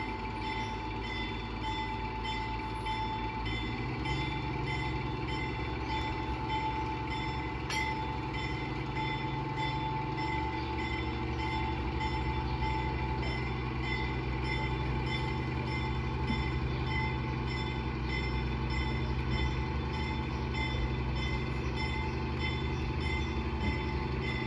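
Diesel locomotive engine running steadily, its low engine note stepping up about 4 seconds in and again about 10 seconds in.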